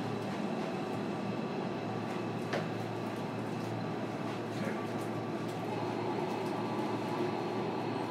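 Inside a JR Kyushu 305 series electric train car: a steady hum from the train with several constant tones, and a couple of faint clicks about two and a half and four and a half seconds in.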